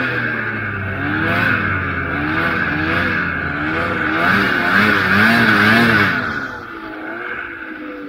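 Old Ski-Doo snowmobile's two-stroke engine running under throttle across powder, its pitch rising and falling, with a steady rushing noise over it. About six seconds in the throttle comes off and the engine drops back to a lower, quieter note.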